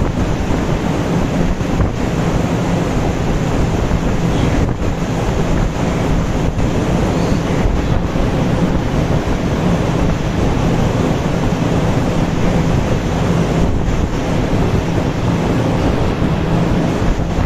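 Large barn ventilation fans running: a loud, steady rushing noise with a low hum underneath.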